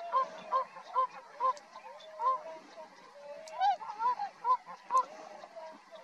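A flock of tundra swans calling: many overlapping short, high hooting notes, several a second, with a brief lull in the middle.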